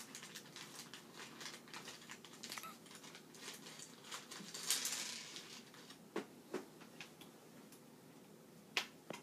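Plastic toy track pieces clicking and clattering as they are handled and fitted together, with a brief rustling scrape about five seconds in and a few sharper clicks near the end.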